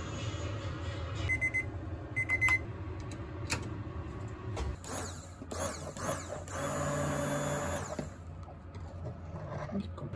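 Two short electronic beeps, then a Tefal hand-held immersion blender whirring in a pot of pumpkin soup as it purées it. The blender runs in short pulses, then steadily for about a second and a half before stopping.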